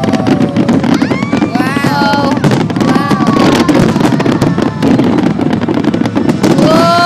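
Fireworks display: many shells bursting and crackling densely and continuously, loud, with several short pitched sounds rising and falling in pitch over the crackle.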